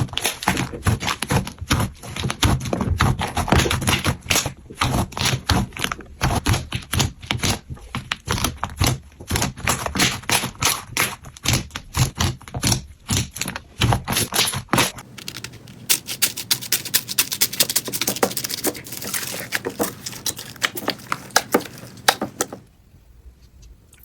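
Slime being squeezed and kneaded by hand, giving dense, rapid sticky clicks and pops. About two-thirds of the way through it changes to a lighter, higher crackling, and it stops briefly just before the end.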